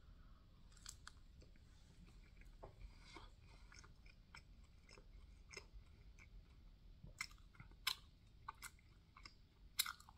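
A person chewing a mouthful of waffle, faint and close, with scattered soft, wet mouth clicks. The clicks grow sharper between about seven and ten seconds in.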